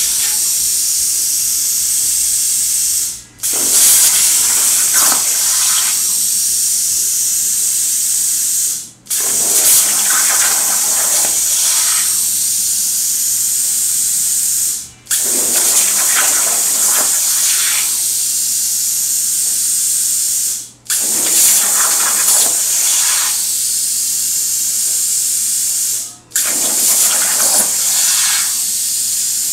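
Hypertherm plasma cutter on a CNC table cutting 16-gauge mild steel with a loud, steady hiss. The arc cuts off briefly about every six seconds, five times in all, and restarts with a coarser crackle for a couple of seconds as it pierces and starts the next cut.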